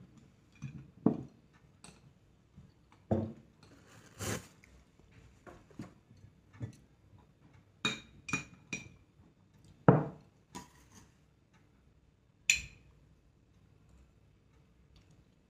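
Spoon and chopsticks knocking and clinking against a soup bowl while noodles are eaten: scattered short knocks, a quick run of three ringing clinks about eight seconds in, and the loudest hits about ten and twelve and a half seconds in.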